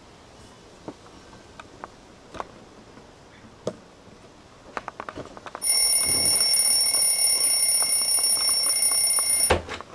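A few light clicks and taps, then an electronic alarm sounds: a loud, steady, shrill tone lasting about four seconds that cuts off abruptly with a knock.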